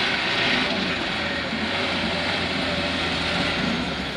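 Mitsubishi Canter light truck's diesel engine running hard at high revs under heavy load as the loaded truck climbs out of a muddy dip. The sound is loud and steady throughout.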